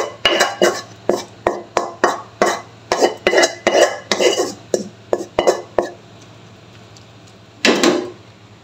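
Spatula scraping and knocking against a non-stick wok as the last of a stir-fry is emptied out, quick repeated strokes about three a second that stop about six seconds in. Near the end, one louder clatter as the wok is set back down on the gas stove.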